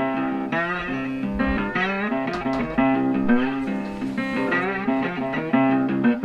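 Background blues guitar music: plucked guitar notes over a steady bass line.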